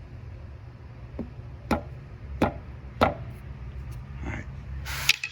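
A steel pry bar knocking on a Cat 299 skid steer's rubber track, tapping over the rollers to find a bad one. There is a light tap, then three sharp knocks about two-thirds of a second apart, followed by two rougher, noisier sounds near the end.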